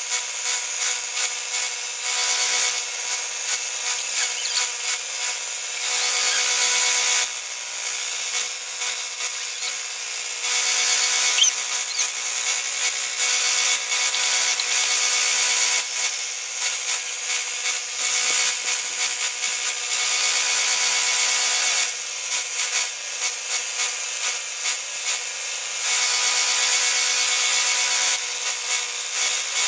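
Vertical belt sander running with a steady motor hum, its belt rasping louder in bouts of a few seconds each time the bottom edges of joined wooden letters are pressed against it.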